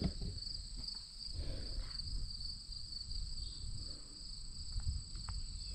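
Late-summer insect chorus: a steady, unbroken high trilling with two pitches. A low rumble runs underneath, and there are a couple of faint clicks near the end.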